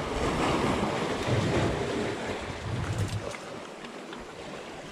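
Sea surf washing among shoreline rocks, with wind on the microphone; it swells in the first couple of seconds and eases off after about three.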